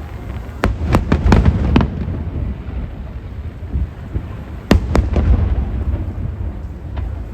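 Aerial fireworks shells bursting overhead: a quick run of sharp bangs about a second in, another cluster near the middle and a single bang near the end, over a continuous low rumble of echoing explosions.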